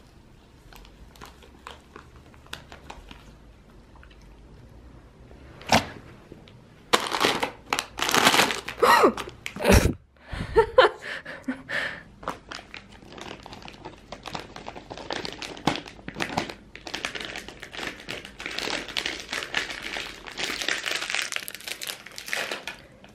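Crinkling of a plastic dog-treat wrapper as a small dog noses at it, then steady crunching and gnawing as the dog chews a Pedigree Dentastix dental stick.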